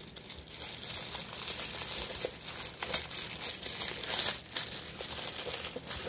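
Thin clear plastic bag crinkling and rustling as it is pulled open and peeled off a small battery pack by hand, in irregular crackles that are loudest about three and four seconds in.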